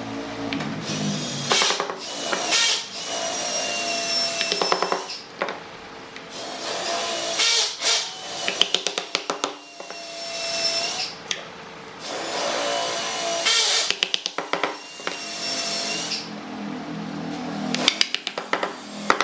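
A hardwood block rubbed and pushed over the pine blocks of a glued tabletop mosaic, a scraping of wood on wood in stretches of two to three seconds with a thin steady tone through it. Between the stretches come quick runs of light wooden taps as the blocks are knocked down into place.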